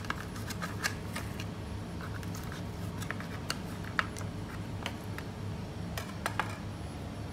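Knife and fork clicking and scraping against a metal tray while cutting crisp-skinned roast pork belly: a scattering of sharp clicks, loudest about four and six seconds in, over a steady low hum.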